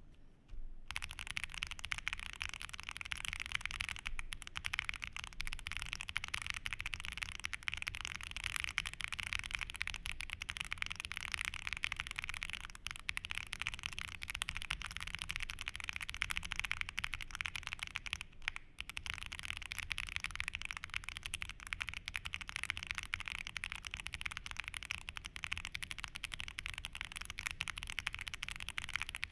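Continuous fast typing on a Chalice40 gasket-mounted mechanical keyboard with a POM plate, stock WS Heavy Tactile switches and GMK Pulse keycaps: a dense, even stream of keystrokes. It starts about a second in and pauses briefly about 18 seconds in.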